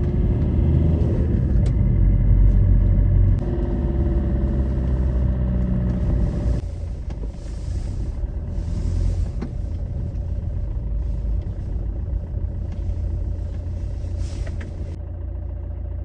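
Car engine running as the car drives, louder with a steady low rumble for the first six or so seconds, then quieter and even.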